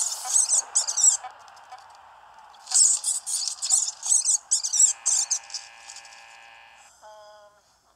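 Soundtrack of a stop-motion hamster cartoon: a string of short, high, scratchy sounds over a steady background hiss. A held musical chord comes in about five seconds in.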